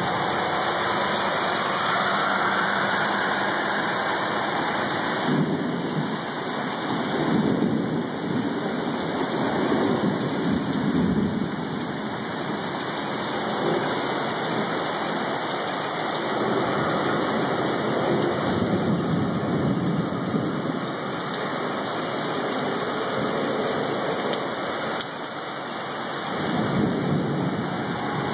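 Heavy rain pouring steadily in a thunderstorm, with several long rolls of thunder rumbling through it.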